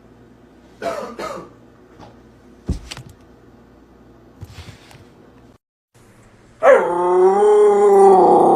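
A dog gives two short yips, then a knock. Later a long, loud, wavering howl starts and carries on.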